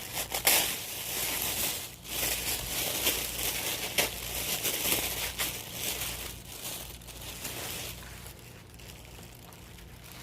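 Packaging crinkling and rustling as a baby-doll outfit is pulled out and unwrapped, with sharp crackles; it dies down about seven or eight seconds in.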